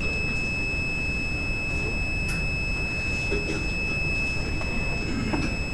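Multimeter continuity beeper sounding one continuous high-pitched tone as the overcurrent trip unit's contact changes state at the end of its one-minute long-time-delay test, showing the unit has tripped. A steady low hum of background noise lies underneath.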